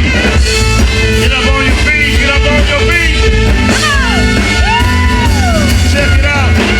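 Live band playing Motown-style soul music with a singer, whose voice slides between notes and holds one long note about five seconds in.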